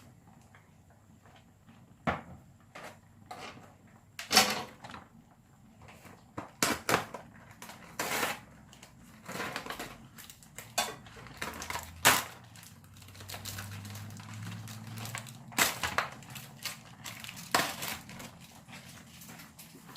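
Irregular knocks, clacks and rustles as kitchen items are handled while cooking, with sharp louder knocks scattered throughout.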